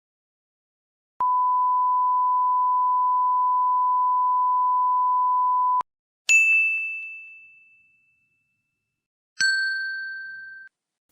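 A steady single-pitch electronic beep, held for about four and a half seconds and cut off sharply, followed by two separate bell dings: the first higher-pitched and ringing out as it fades, the second lower and cut short as it fades.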